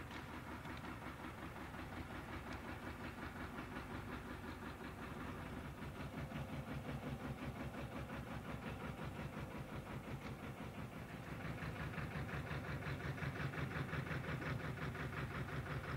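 Narrowboat's diesel engine running with a steady, rapid chugging beat, growing louder about twelve seconds in.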